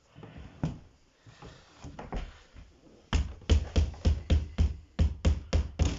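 A hammer tapping a small nail into the edge of a wardrobe's thin back board: light handling noises at first, then from about halfway a quick, even run of sharp taps, about three to four a second, as the nail is driven in.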